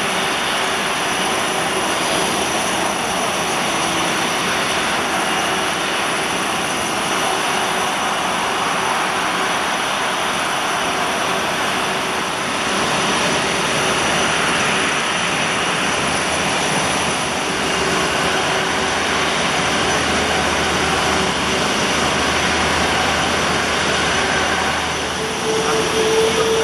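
Airbus A350 XWB's Rolls-Royce Trent XWB turbofans running at taxi power: a steady jet whine with several high thin tones over a broad rushing hiss. A new low steady tone comes in near the end.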